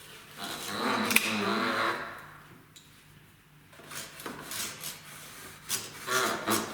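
Soft shoe brush sweeping dust off a domestic knitting machine: a run of short, scratchy brush strokes in the second half, after a softer stretch of brushing and handling.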